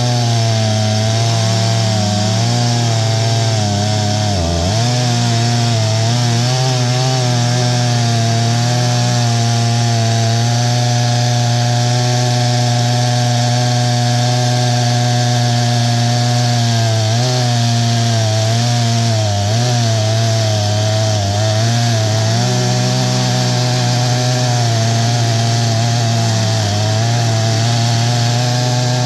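Stihl MS661 two-stroke chainsaw in an Alaskan mill, held near full throttle while ripping a pine log lengthwise with a 36-inch bar and full-chisel chain. The engine note stays high and steady, sagging briefly in pitch several times as the cut loads it.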